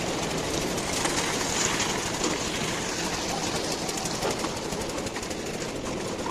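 Concrete-pouring machinery, such as a concrete mixer, running steadily with a dense mechanical rattle during a roof-slab pour.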